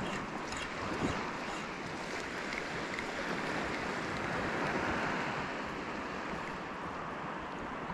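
Steady rush of small waves washing over a shallow reef, with a brief knock about a second in.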